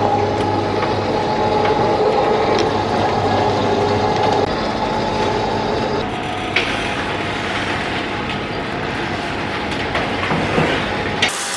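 Motorised metal roller shutter rolling up, its motor running with a steady hum. The tone of the sound changes about halfway through, and it cuts off near the end.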